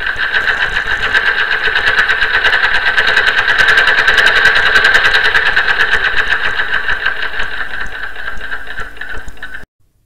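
A sewing machine running at steady speed, stitching in a rapid, even rhythm, then stopping abruptly near the end.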